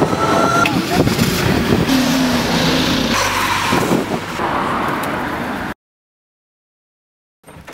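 Loud, dense passing-vehicle noise with a few sliding tones, cutting off abruptly to dead silence a little under six seconds in.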